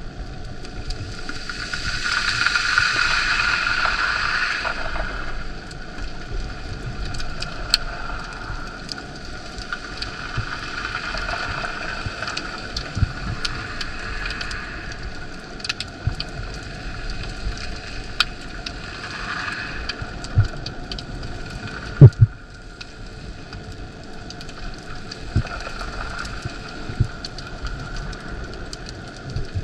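Water noise as picked up by a camera in a dive housing: a steady hiss full of small clicks and crackles, swelling for a few seconds near the start. A single sharp knock about 22 seconds in is the loudest sound.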